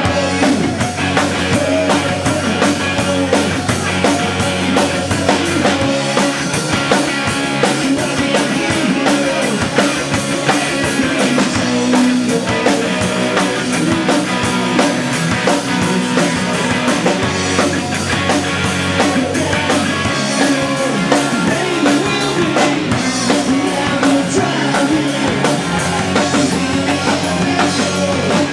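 Live rock band playing loud: Telecaster-style electric guitar, electric bass and drum kit.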